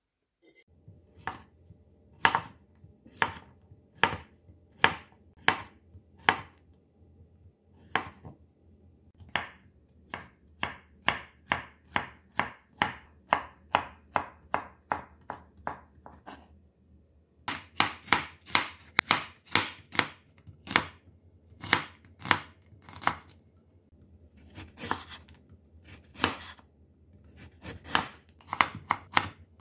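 Chef's knife chopping zucchini and carrot on a wooden cutting board. There are sharp knocks of the blade on the board, spaced about a second apart at first, then in quicker runs of three or four cuts a second.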